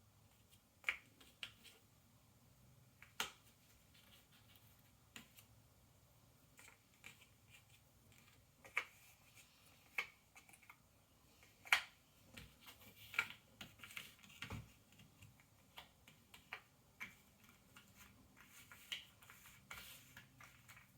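Ravensburger cardboard jigsaw puzzle pieces being picked up, tapped and set down on a table: light, irregular clicks and taps, a few at a time, coming thicker in the second half.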